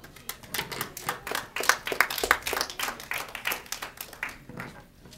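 A small audience clapping: a few seconds of quick, irregular handclaps that thin out and stop near the end.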